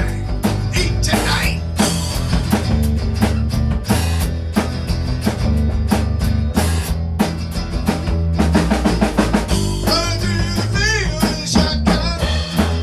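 Drum kit played along with a recorded rock-pop song, a steady beat of sharp snare and cymbal hits over guitar and bass.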